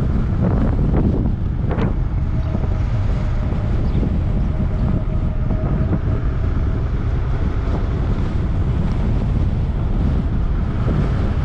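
Wind buffeting the microphone of a moving high-power electric bike: a steady low rumble with a few faint clicks and a faint steady tone in the middle.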